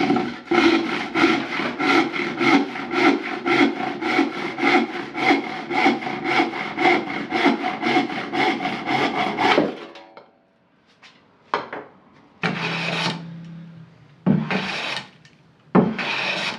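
Handsaw crosscutting a beech board with rapid, even push-pull strokes, which stop abruptly about ten seconds in. After a short gap come a few separate, longer strokes of a hand plane along the board's edge.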